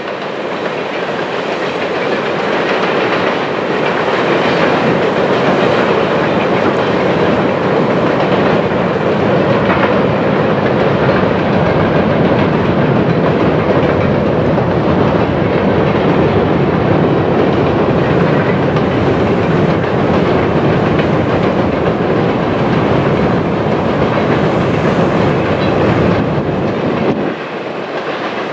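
Freight train cars rolling past on steel rails: a steady, loud running noise of wheels on track with clickety-clack, easing off a little near the end.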